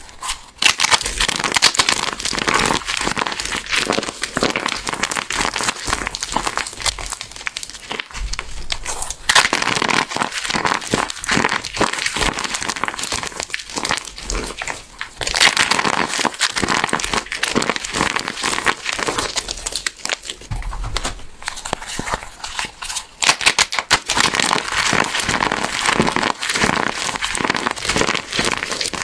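Golden yellow crunchy soap blocks being crushed by hand: a dense, continuous crackling crunch that eases off briefly a few times.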